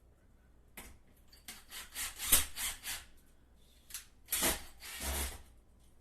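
A series of rubbing or scraping strokes: a quick run of them, then two longer, heavier ones near the end.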